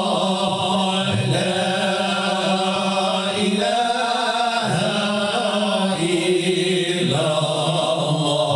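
A group of men chanting Moroccan madih (religious praise singing) together into microphones, unaccompanied, in long held melodic lines.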